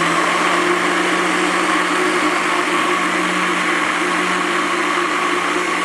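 Countertop blender running steadily at full speed, its motor giving a constant hum over the churning of a full jar of baked potato, milk and cream-caramel powder.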